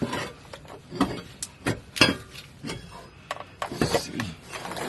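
Irregular metal clanks and knocks from tools and parts being handled while a driveshaft loop is fitted under a car, about half a dozen strikes with the loudest about two seconds in.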